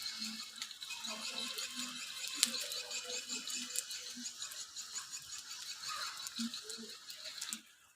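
Many swiftlets chirping and twittering together in a swiftlet house, mixed with the lure call played for them, as a dense run of short high chirps. The sound cuts off abruptly just before the end.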